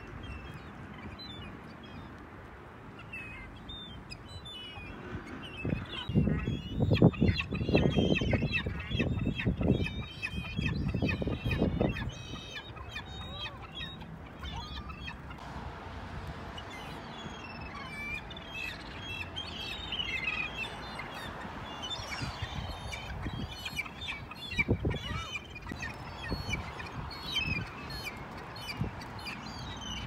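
A flock of gulls calling, many short overlapping calls throughout. Bursts of low rumble are the loudest sound between about 6 and 12 seconds in.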